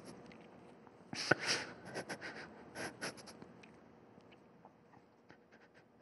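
Faint breaths drawn close to a microphone during a pause in Quran recitation, a few short airy inhalations followed by small mouth clicks.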